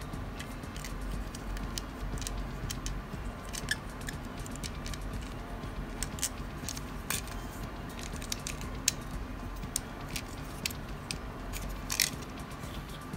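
Small plastic and metal parts of a Mini 4WD chassis clicking and tapping as they are handled and snapped into place, in short irregular clicks over a faint steady hum.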